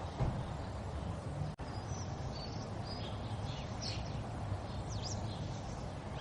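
River water flowing steadily, with small birds giving short, high chirps and quick whistles over it. The sound drops out for an instant about a second and a half in.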